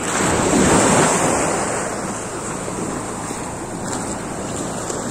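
Small waves breaking and washing up a shallow shore. The wash swells just after the start and eases off over the next second or two, with wind buffeting the microphone throughout.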